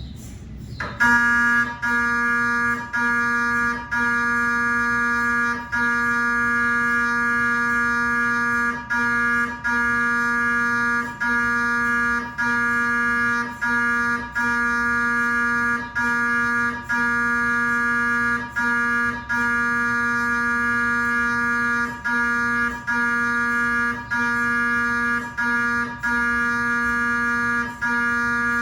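GE 3T Twinspeed MRI scanner's gradient coils running a cardiac scan sequence: a steady pitched buzz that starts about a second in after a short pause, broken by brief dropouts about once a second.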